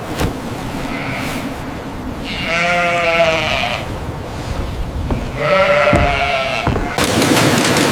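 Sheep bleating: two long, wavering bleats a couple of seconds apart, with a fainter one before them, over steady background noise. Near the end a louder, even rushing noise sets in.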